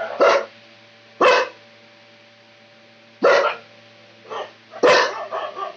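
A dog barking: about five loud single barks at irregular gaps of one to two seconds, the fourth quieter and the last followed by a short trailing yelp.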